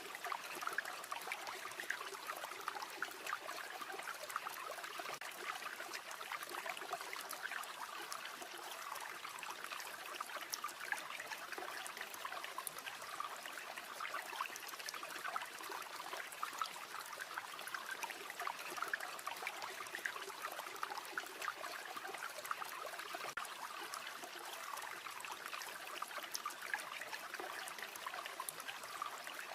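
River water flowing and trickling steadily, a dense, even babble.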